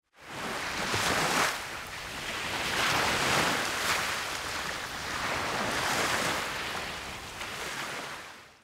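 Small waves washing onto a sandy beach, the surf swelling and fading every couple of seconds, then fading out near the end.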